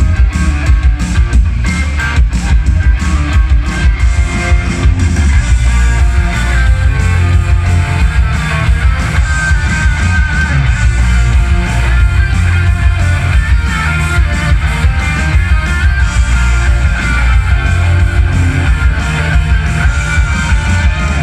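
Loud idol-pop song with vocals and guitar played over a stage PA, with a heavy, steady bass beat.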